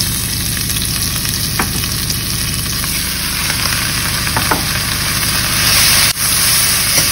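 Sliced onions sizzling in hot oil in a pressure cooker, stirred with a metal slotted spoon that scrapes and clinks against the pot a few times.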